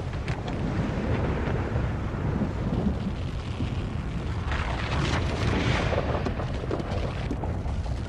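Deep, steady earthquake rumble, with a rushing noise that swells about halfway through and then eases.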